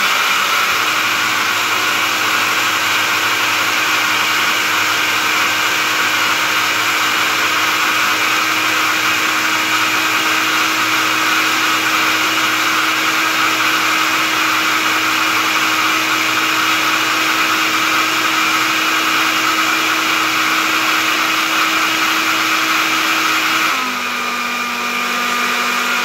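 Single-serve personal blender's motor running steadily, blending a berry, yogurt and apple-juice smoothie. The hum steps up slightly in pitch at the very beginning and drops back down near the end.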